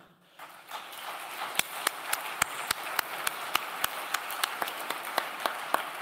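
Audience applauding in a lecture hall, starting about half a second in. One set of loud, sharp claps close to the microphone stands out at about three to four a second.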